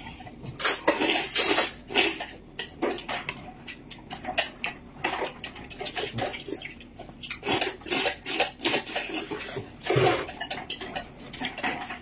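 Noodles being slurped in repeated irregular bursts, with chopsticks clicking against bowls as two people eat.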